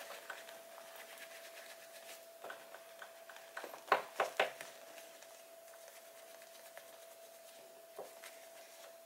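Soft rubbing of a cotton pad scrubbing tarnish off a metal bag ring with cleanser. About four seconds in come three sharp clicks, with one more near the end, over a faint steady tone.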